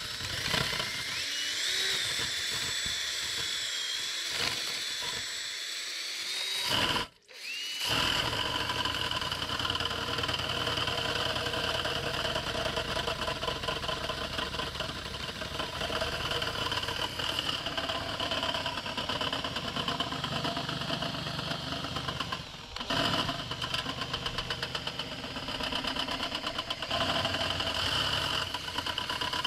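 Cordless drill/driver spinning a threaded rod with a non-metal sweeping brush inside a stainless double-wall stove flue: a steady high motor whine. It cuts out briefly about seven seconds in, then spins up again with a rising whine and runs on.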